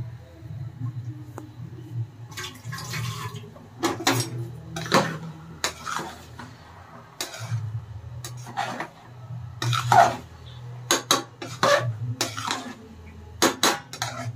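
Metal spatula scraping and knocking against an aluminium pressure cooker while stirring rice, in irregular strokes over a low hum.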